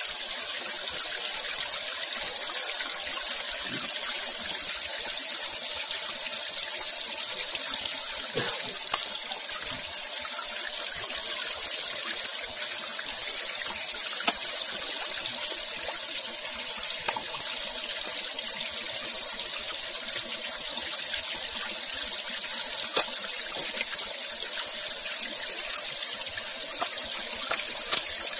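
Steady hiss of water splashing and pattering onto the surface of a koi pond, with a few faint clicks.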